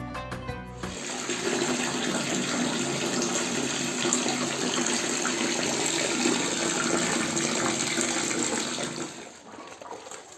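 Water running steadily, starting about a second in and dying away near the end.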